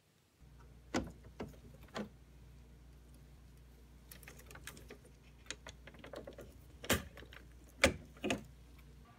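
Plastic clicks and knocks from a Whirlpool refrigerator's water filter cover and cartridge being handled and unlatched, over a steady low hum. The loudest sharp snaps come near the end.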